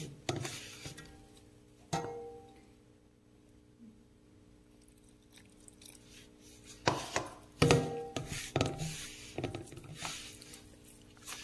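Hands mixing a crumbly corn flour and mashed potato dough mixture in a steel plate: soft rustling scrapes with a few sharp clicks against the metal, the loudest about two seconds in and again after about seven seconds. A faint steady hum runs underneath.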